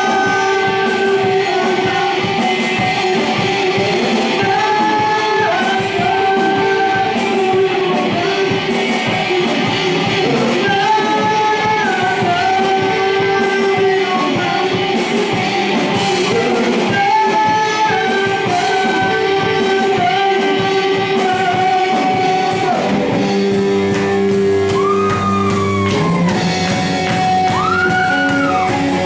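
Live rock band playing: electric guitars and a drum kit, with a lead vocalist singing into the microphone. The melody repeats in phrases of about six seconds, then about three-quarters of the way through gives way to long held notes with a few gliding, bent notes.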